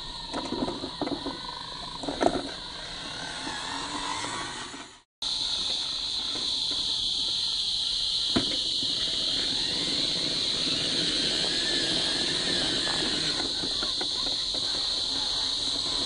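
Steady high-pitched insect buzz, like cicadas or crickets in the woods. It is joined in the first few seconds by short knocks and scrapes as a small 1/18 scale RC crawler's tyres and drivetrain work over rock. The sound cuts out completely for a moment about five seconds in, then the insect buzz returns stronger.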